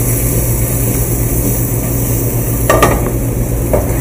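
Wild mushrooms and Italian sausage sizzling in a sauté pan on a gas range, over a steady low hum. A short clatter of metal on metal comes about three seconds in as a spoon stirs the pot.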